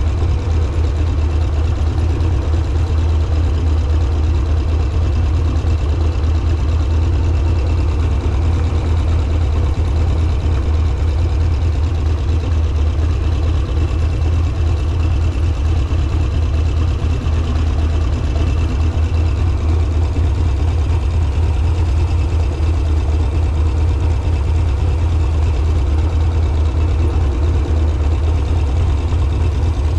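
Harley-Davidson Sportster V-twin engine running steadily at an even, low engine speed, with no revving.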